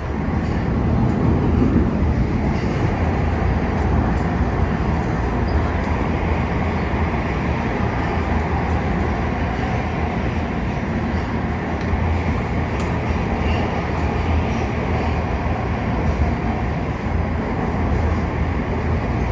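Hitachi CQ311 rapid-transit rail car running through a tunnel, heard from inside: steady wheel-on-rail and running noise, louder from the start and then holding level.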